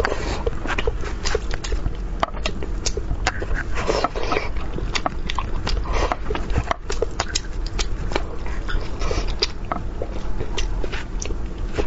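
Close-miked mouth sounds of a person eating braised fish: chewing, lip smacking and sucking, heard as many small irregular clicks and wet smacks.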